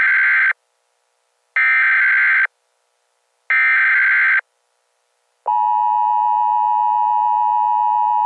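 Emergency Alert System SAME header: three identical screeching data bursts, each just under a second long and about a second apart. About five and a half seconds in, the steady EAS attention tone starts and holds.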